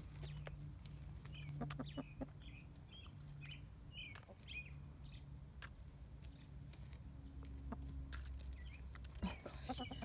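Hens giving a run of short high chirps over the first few seconds and a few clucks near the end, with scattered light taps of beaks pecking at a wooden treat toy.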